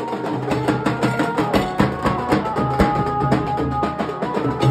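Nasik dhol band drumming: several large barrel dhols struck with sticks in a fast, dense, driving rhythm, with a few held melody tones above the drums.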